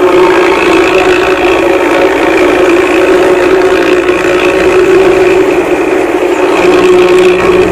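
Diesel engine of an intercity bus running steadily, with a loud exhaust.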